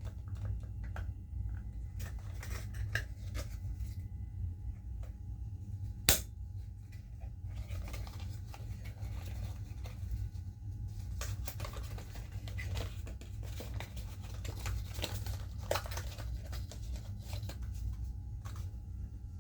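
Close-up rustling and handling of a small product's packaging, with scattered light taps and clicks and one sharp click about six seconds in.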